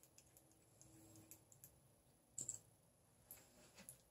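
Faint clicks of lip liner and liquid lipstick caps and tubes being handled, with a somewhat louder click about two and a half seconds in; otherwise near silence.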